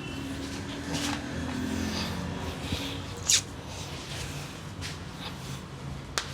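Barber's hands working a head massage: rubbing over skin and hair against a steady low hum, with a sharp snap about three seconds in and another near the end.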